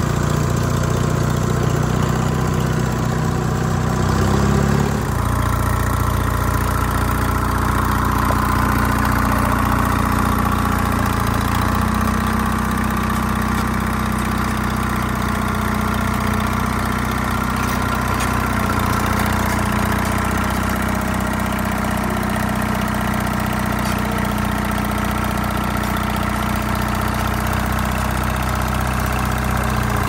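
Detroit Diesel 2-71 two-cylinder two-stroke diesel in an old Allis-Chalmers HD5 crawler dozer, running steadily at low speed. It is heard close up from the seat at first, then from beside the machine after about five seconds, when the low end drops away.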